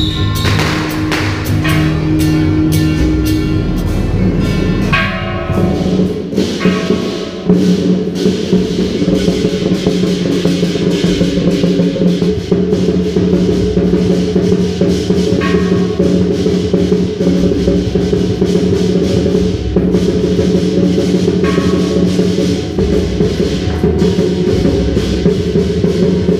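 Chinese temple procession music for a lion dance: drums, gongs and cymbals struck continuously, with held pipe notes over them.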